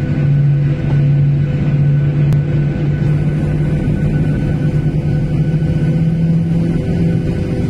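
Jet airliner's turbofan engines heard from inside the cabin, running steadily at low ground thrust as a loud droning hum. The hum rises slightly in pitch about halfway through.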